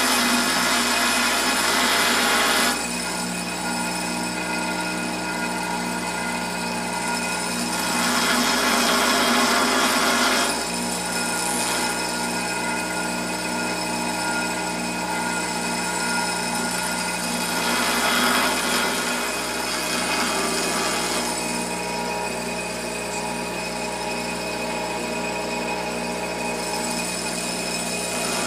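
A grinder running steadily while grinding the metal of a Master Lock padlock. The grinding gets louder three times as it bites harder: in the first few seconds, around eight seconds in, and around eighteen seconds in.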